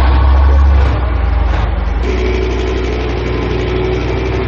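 Bergepanzer 2 armoured recovery vehicle's ten-cylinder MTU diesel engine running as the tracked vehicle drives through mud, a steady low drone. About two seconds in the sound changes abruptly and a steady mid-pitched whine joins it.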